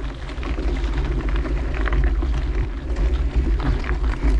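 Mountain bike riding along a dirt trail: wind rumbling on the helmet-mounted microphone, with tyre and trail noise and scattered small rattles and clicks from the bike.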